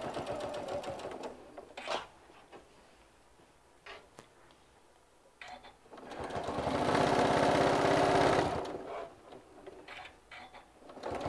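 Electric sewing machine top-stitching: a short run at the start, a pause with a few light clicks, then a steady run of about three seconds from around six seconds in before it stops.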